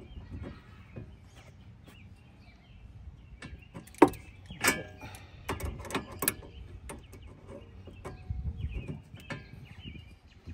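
Irregular metallic clinks and knocks of a wrench working the jam nut on an outer tie rod end to loosen it. The sharpest knock comes about four seconds in, followed by a cluster of clinks.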